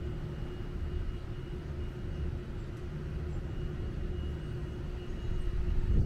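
Distant road traffic as a steady low rumble, with a faint steady hum over it.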